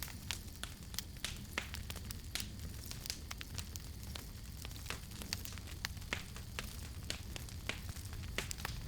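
Campfire burning, with irregular sharp crackles and pops over a steady low rumble of flame.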